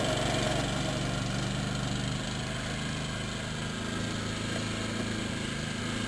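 Small garden tractor engine idling steadily, with no revving.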